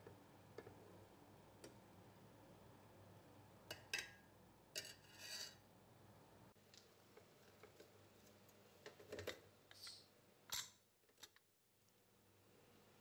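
Faint clinks and short scrapes of a steel ladle against an aluminium pot as cooked rice is stirred. The few loudest clinks and scrapes come about four to five seconds in and again around ten seconds.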